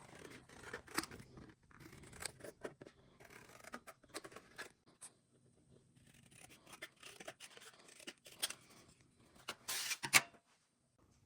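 Small hard parts being handled in a small room: irregular light clicks, taps and rustles, with a louder scraping rustle about ten seconds in.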